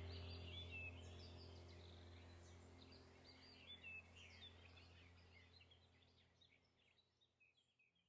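Faint small birds chirping in quick, repeated calls over a low, steady drone of ambient background music; both fade away gradually toward silence by the end.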